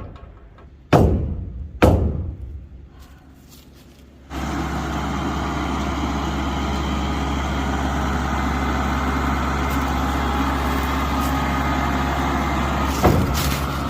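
Two loud knocks about a second apart, then a vehicle engine comes in abruptly about four seconds in and keeps running steadily with a low hum.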